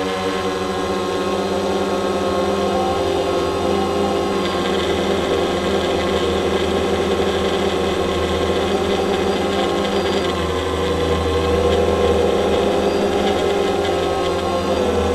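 Camera drone's motors and propellers buzzing steadily in flight, a whine of several stacked tones that wavers slightly in pitch as it manoeuvres.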